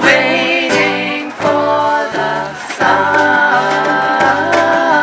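A live ukulele band playing a song: voices singing, with a long held note in the second half, over strummed ukuleles and an electric bass line.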